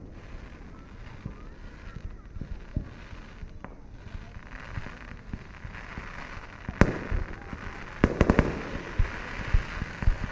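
Fireworks going off at a distance: scattered low thuds, a sharp bang about seven seconds in, then a quick cluster of bangs about a second later.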